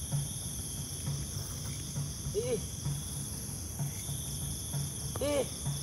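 Steady night chorus of crickets and other insects. Under it, faint low thumps repeat about twice a second like a distant drum, which the listeners liken to a beduk or to kompang drumming for sahur.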